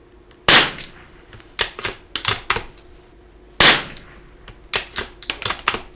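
Two .22LR rifle shots from a Rock Island youth bolt-action rifle, about three seconds apart, each followed a second later by a quick series of metallic clicks as the bolt is worked to chamber the next round.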